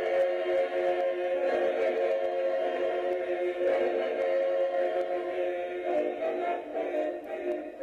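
Background choral music: a choir singing long held chords that change to a new chord a few times.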